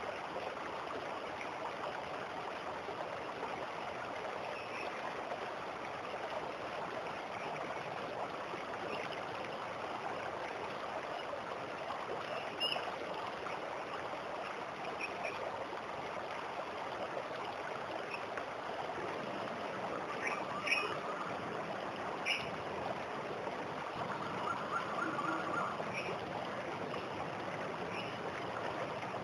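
Waterfall water rushing and splashing steadily. A few short bird chirps come in the second half.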